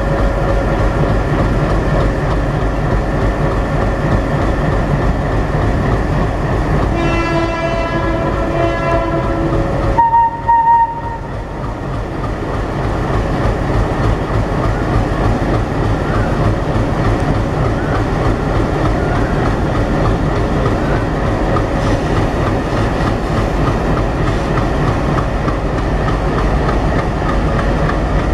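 A lashup of WDM3D and WDG3A ALCO-design diesel locomotives running light past at slow speed, their engines chugging loudly and the wheels clacking over the rail joints. A horn sounds for about two and a half seconds about seven seconds in, then a short, higher, louder blast follows.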